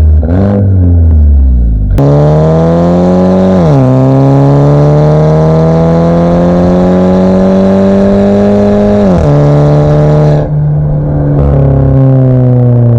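Mercedes-Benz A250 (W177) turbocharged four-cylinder exhaust, fitted with an aftermarket downpipe, under throttle. A quick blip, then the engine comes in loud, its pitch dropping sharply twice and climbing slowly for several seconds in between, before settling.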